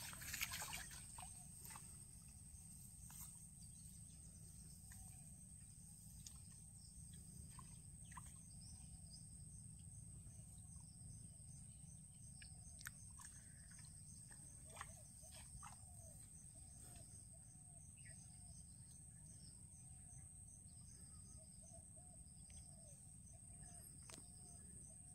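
Faint outdoor ambience by a pond: a steady high insect whine with faint, evenly repeating chirps, scattered soft bird calls and a low background rumble.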